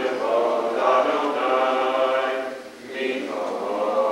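Congregation singing a prayer chant together, many voices in sustained phrases, with a short breath pause about two and a half seconds in before the singing resumes.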